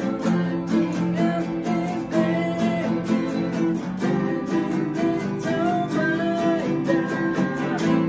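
Several acoustic guitars, one of them a twelve-string, strummed together in a steady rhythm playing an unplugged rock song, with a melody line bending above the chords.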